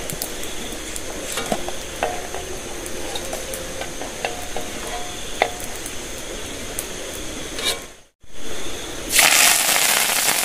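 Stirring in a cooking pot with small clinks of a utensil over a steady hiss; after a brief dropout about eight seconds in, a loud sizzle starts, food frying in hot oil.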